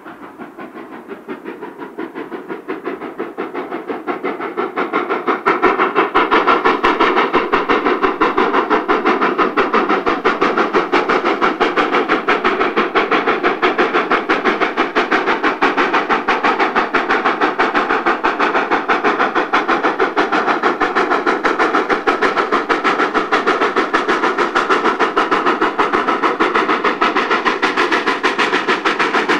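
D&RGW 2-8-2 No. 482, a K-36 narrow-gauge steam locomotive, working hard as it approaches, giving a rapid, even beat of exhaust chuffs. The beat grows louder over the first five seconds or so, then holds steady and loud.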